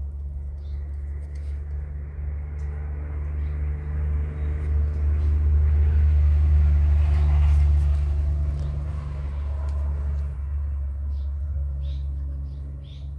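A motor vehicle's engine rumbling past: a steady low hum that builds to its loudest about seven seconds in, then fades. A few faint short clicks sound near the end.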